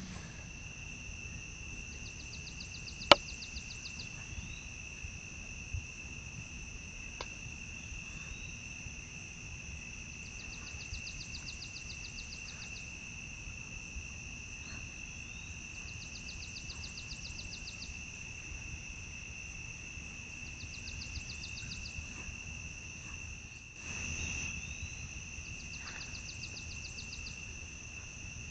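Insects chirping steadily: a continuous high trill on two even pitches, joined every four to five seconds by bursts of faster pulsed chirping from another insect. A single sharp click about three seconds in is the loudest sound.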